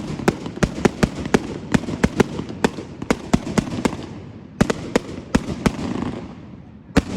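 Fireworks going off: a rapid run of sharp pops and cracks, two or three a second, over a low rumble, easing off briefly about four seconds in and again near the end.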